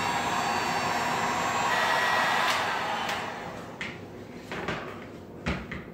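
Electric heat gun blowing, a steady rush of fan and hot air, shrinking heat-shrink tubing onto wire ends. It winds down about three seconds in, followed by a few light knocks.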